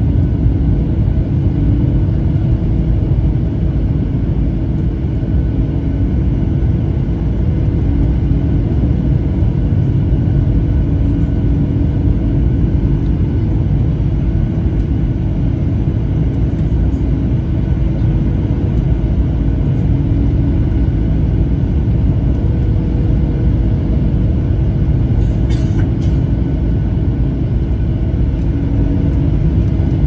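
Jet airliner cabin noise on approach: a steady rumble of the engines and airflow past the fuselage, with a few steady hum tones running through it.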